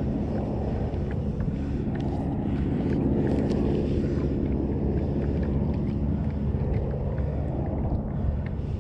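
A low, steady engine hum that swells slightly a few seconds in and then eases, with wind on the microphone. A few faint clicks come from the fishing reel being handled.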